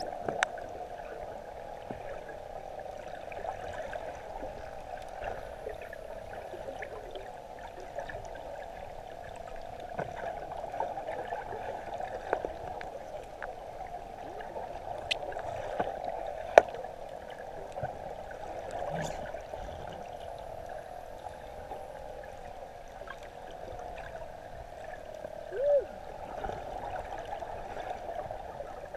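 Underwater ambience picked up by a submerged action camera: a steady hiss of moving water with scattered sharp clicks, one louder click about two-thirds of the way through, and a short gurgle near the end.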